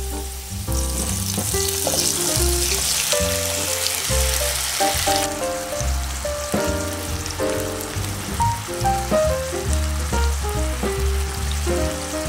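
Chopped garlic frying in butter and olive oil in a pan: a steady sizzle that drops off sharply about five seconds in, fainter after. Background music plays throughout.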